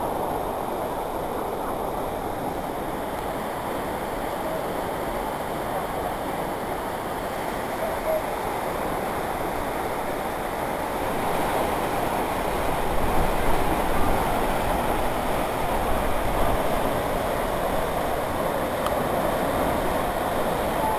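A waterfall and mountain stream rushing over rocks: a steady noise of falling water that grows a little louder about halfway through.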